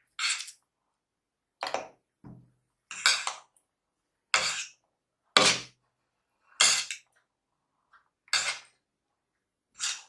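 Cutlery scraping and clinking against a plate as a plate of noodles is mixed with chilli paste, in about nine short strokes roughly a second apart.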